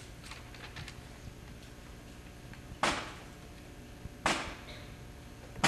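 Drill rifles handled in unison by a drill team. A few light clicks, then two sharp cracks about a second and a half apart, with a third right at the end, as the team executes rifle movements together.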